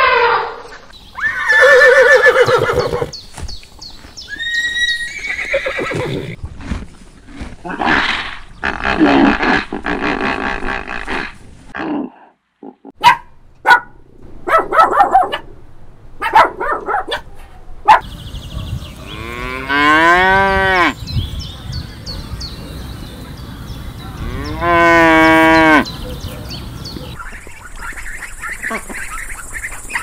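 A string of separate animal calls, one after another with short gaps: an elephant's trumpet ending just at the start, then a run of varied shorter calls. About two-thirds of the way in and again later come two long calls that sweep down and back up in pitch, and a hissy patch follows near the end.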